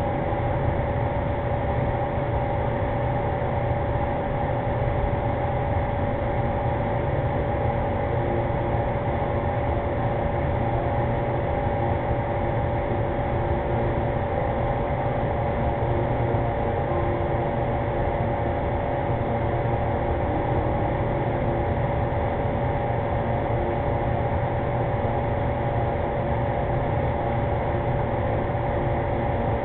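Steady hum and hiss with a few constant tones, picked up by a security camera's microphone.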